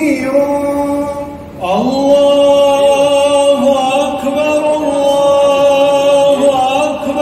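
Background vocal music: a slow chant with long held notes. It breaks off briefly about a second and a half in, then a new phrase begins with a rising note.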